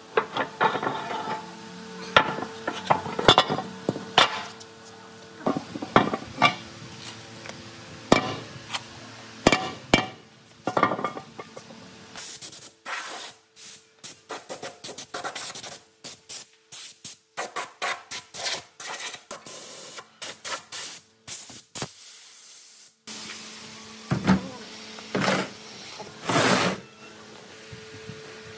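Hand tools working on rusted machine parts: sharp metal knocks and taps for the first dozen seconds, then many short hissing or scraping bursts, cut off abruptly one after another, and a few louder scrapes near the end.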